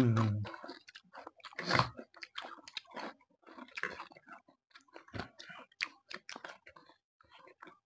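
Close-up eating sounds: irregular chewing and biting of crunchy food, with wet mouth clicks and smacks and a louder crunch a little under two seconds in. A short low voiced sound comes at the very start.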